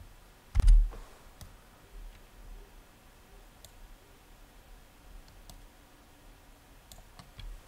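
Scattered clicks from working a computer mouse and keyboard: one loud click with a low thump about half a second in, then a few faint single clicks.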